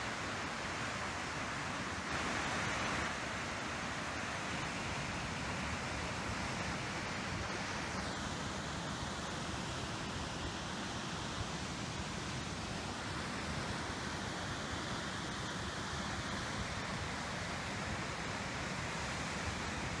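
Waterfall's falling water making a steady, even rushing noise, its tone shifting slightly about eight seconds in.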